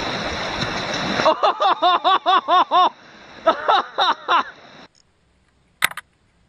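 Rushing river rapids, then a person laughing hard in two quick runs of high-pitched "ha"s, about five a second, with the water fainter behind. A single sharp click near the end.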